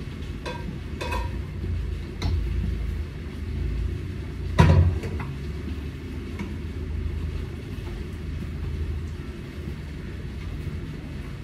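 A frying pan set down on a gas stove's grate: a few light clicks, then one loud metal knock about four and a half seconds in, over a steady low rumble.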